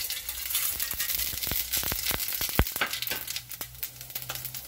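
Tempering spices (mustard seeds, urad dal, fennel seeds and a piece of cinnamon) sizzling and crackling in hot oil in a stainless steel kadai, with many sharp pops throughout and one louder click about two and a half seconds in.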